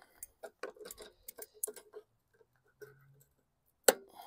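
Light metallic clicks and ticks of hand tools being worked at a lawn mower's handle, a quick run of them in the first two seconds, then one sharp click near the end.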